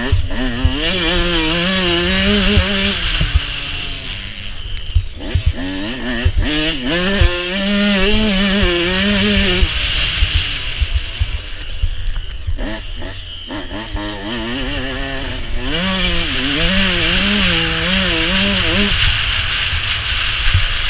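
Two-stroke 149cc Suzuki RM motocross bike engine revving hard and rising and falling in pitch as the rider works the throttle through the gears, cutting back several times between runs. Wind rushes over the helmet-mounted camera, with low rumble and knocks from the bike crossing the rutted ground.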